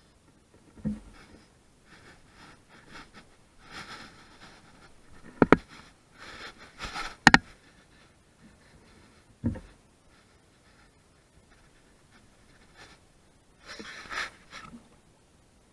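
Handling noises: several sharp knocks and thumps, the loudest two about five and seven seconds in, among bursts of rustling and scraping.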